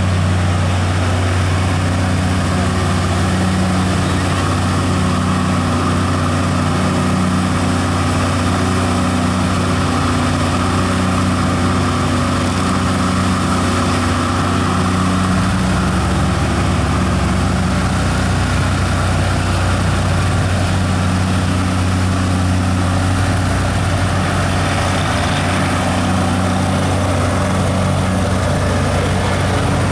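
Old Manitowoc cable crane's engine running steadily as it works a clamshell bucket, a loud low drone that grows heavier about halfway through.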